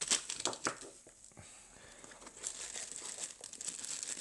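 Thin plastic zip-lock bag crinkling and rustling as it is handled, a flurry of crackles at the start, a short lull, then steady crinkling again from about halfway on.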